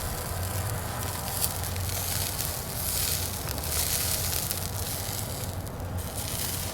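Fire crackling and food sizzling on a barbecue fire grill, a steady hiss with scattered sharp pops.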